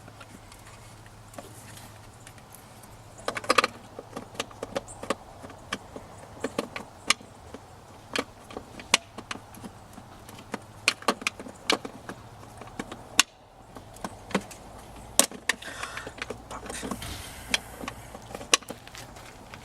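Irregular clicks and knocks of plastic parts being handled, with a busy flurry about three seconds in: taillight bulb sockets being pushed and twisted into a new taillight housing.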